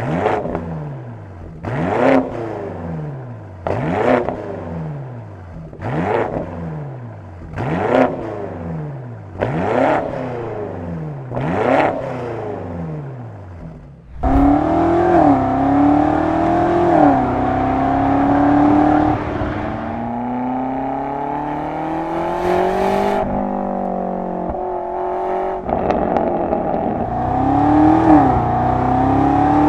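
A G90 BMW M5's twin-turbo V8 through a full Scorpion GPF-back stainless exhaust with its valves open, revved in seven sharp blips about two seconds apart. About fourteen seconds in, it changes to the car being driven on the road: the engine pulls steadily, its pitch climbing and dropping back at gear changes.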